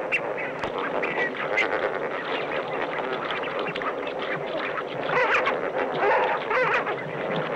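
A large flock of flamingos calling all at once in a dense, overlapping clamour of goose-like honks, agitated by a predator charging into them. The calls grow louder a little past the middle.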